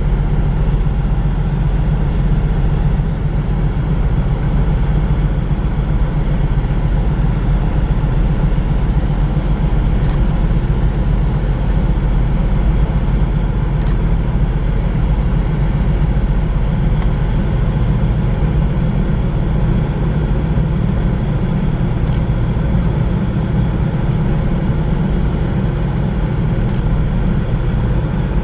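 Steady low rumbling drone of a large Ro-Ro car carrier's diesel engines as the ship manoeuvres slowly into port.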